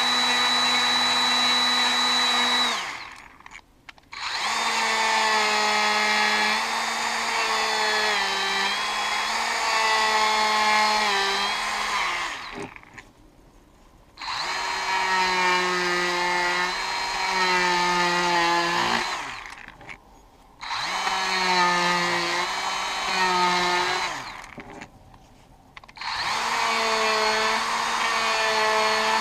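DeWalt 18V brushless cordless die grinder with a spherical burr carving into wood: a high motor whine that runs in several bursts, cutting out and restarting four times, its pitch dipping and wavering as the burr bites into the wood.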